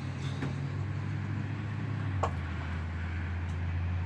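Steady low hum of an idling engine, with a single light knock about two seconds in.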